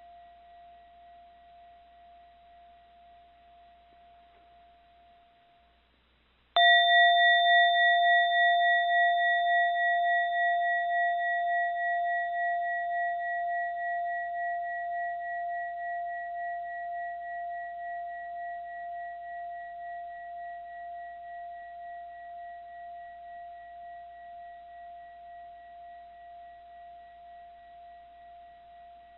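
A mindfulness bell struck once, about six and a half seconds in, just after the ring of the previous strike has died away. It rings with a slow wavering pulse and fades gradually over more than twenty seconds.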